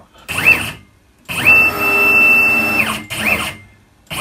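Stepper motor driving a CNC router axis through a 5 mm pitch ball screw at 4000 mm/min, making three moves: a short one, a longer one of about a second and a half, then another short one. Each is a whine that rises in pitch as the axis accelerates and falls as it slows, and on the long move it holds a steady pitch at top speed.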